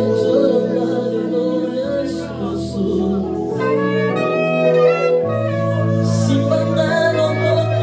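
Worship music: held chords over a steady bass that changes every couple of seconds, with a sustained melody line above.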